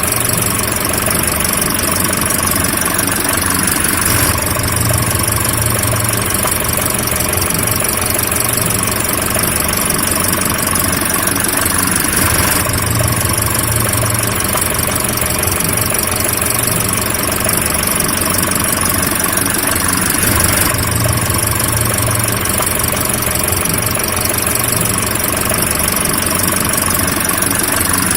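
Car engine idling steadily, with a slight swell in its low rumble about every eight seconds.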